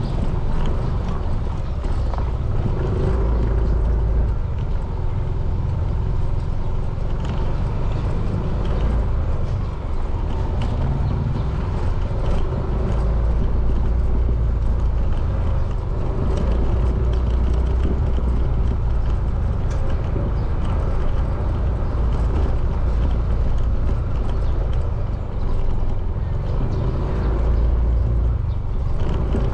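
Motorcycle riding at steady speed: the engine runs continuously under heavy low wind rumble on the camera's microphone.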